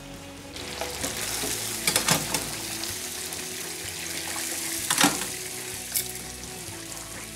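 Breaded chicken pieces frying in hot oil in a commercial gas deep fryer, a dense crackling sizzle that comes up about half a second in. A few sharp metal clanks come from the wire fry baskets being lifted out and hung, around two seconds in and again near five and six seconds.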